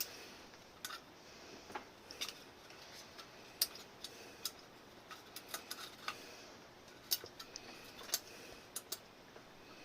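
A series of irregular, sharp, faint clicks and light taps, about fifteen over ten seconds, some coming in quick pairs.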